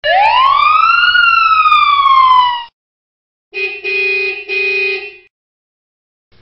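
A siren sounds one wail, rising quickly in pitch and then slowly sliding down before cutting off. After a short pause, a vehicle horn honks three times, the first honk short.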